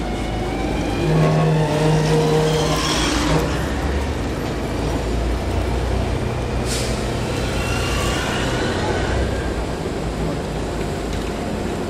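Vintage electric tram and its trailer cars running slowly past around a curve: a steady low rumble of steel wheels on the rails with motor hum, a short sharp hiss about seven seconds in, and faint high squeal from the wheels on the curve near the end.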